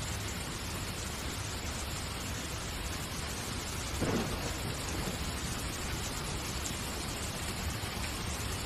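A steady hiss of noise, with a brief low thump about four seconds in.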